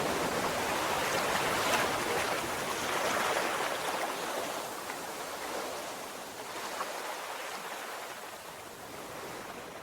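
A steady rush of water noise, with no distinct events, growing gradually fainter.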